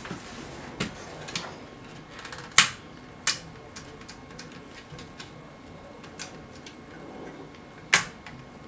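Sharp clicks and snaps at irregular intervals as parts are pried and pulled at the edge of an opened HP Pavilion dv2000 laptop's chassis. The loudest comes about two and a half seconds in, with another near the end.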